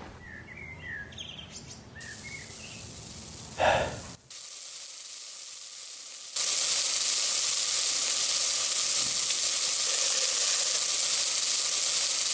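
Faint bird chirps and a short loud thump, then from about six seconds in a steady loud sizzle of food frying in a pan.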